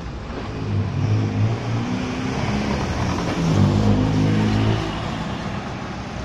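City bus's diesel engine accelerating as the bus pulls away, its note rising and loudest about four seconds in, then easing off as it moves away.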